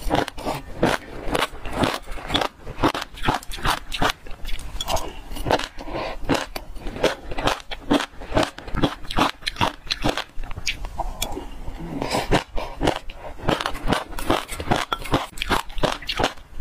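Passion fruit seeds crunched between the teeth in close-up: a rapid, irregular run of crisp cracks, several a second.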